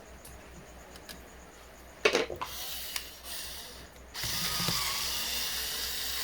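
Screwdriver taking screws out of a laptop motherboard: a few sharp clicks about two seconds in, then a steady mechanical run from about four seconds in.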